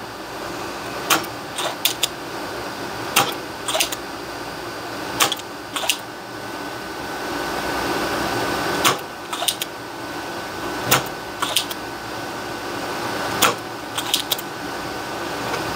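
Spring-loaded solder sucker (desoldering pump) snapping as solder is sucked off the stepper motor pins of a circuit board. The sharp clicks come mostly in pairs about half a second apart, every couple of seconds, over a steady faint hum.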